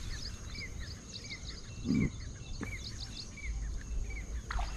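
Repeated short chirping calls from wildlife, about two a second, over a low wind rumble on the microphone, with a brief low thump about two seconds in.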